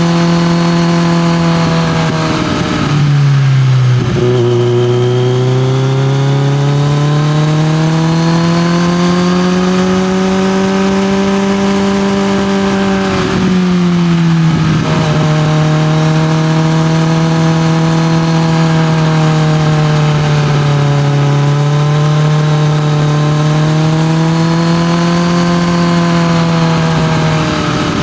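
Kawasaki Z900's inline-four engine through an SC-Project CRT exhaust, running under way. The note climbs slowly and evenly, then steps abruptly at gear changes about 3 seconds in, around 13 seconds, and again near the end.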